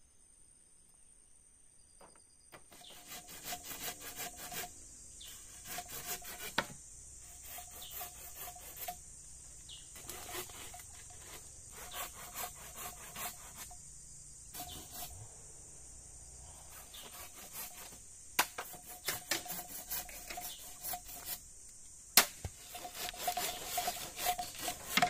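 Hand saw cutting wood in repeated runs of quick back-and-forth strokes, each run one to three seconds long with short pauses between, starting about two and a half seconds in, with a sharp knock near the end.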